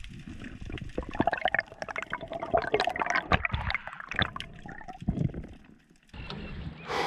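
Underwater water noise heard through a diving camera: water movement and bubbling with many small crackling clicks, busiest in the middle and dropping away briefly near the end.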